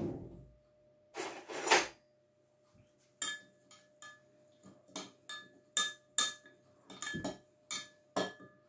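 Spoon clinking against a glass measuring jug while stirring an oil, lemon juice and garlic sauce; sharp ringing clinks a couple of times a second from about three seconds in, after two short scuffs about a second in.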